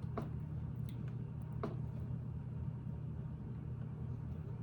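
A few faint clicks of plastic Lego plates being handled and pressed into place, the clearest about a second and a half in, over a steady low hum.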